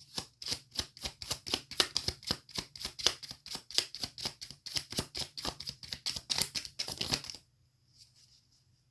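A deck of tarot cards shuffled by hand: a quick run of papery card slaps, about five a second, that stops about seven seconds in.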